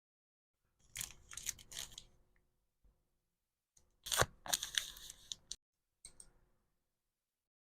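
Packaging material being torn by hand, in two crackly rips of about a second and a half each and a short third one near the end.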